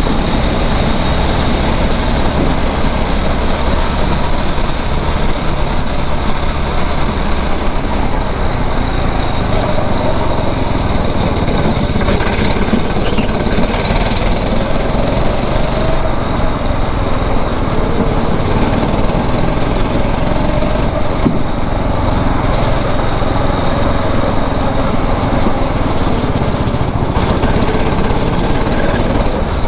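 A 9 hp four-stroke single-cylinder rental kart engine running steadily under way, with a dense rushing noise over it.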